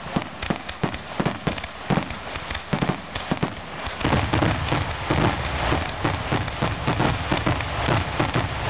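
Aerial fireworks going off in rapid succession, sharp bangs and crackles. From about four seconds in they merge into a louder, denser continuous crackling barrage.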